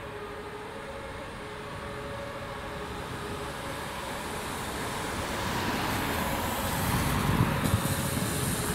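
Road traffic: a vehicle approaching, its engine and tyre noise growing steadily louder over several seconds.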